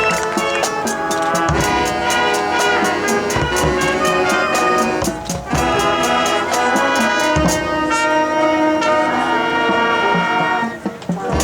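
Marching band playing: brass horns holding chords over an even percussion beat, with two brief breaks, about halfway and near the end.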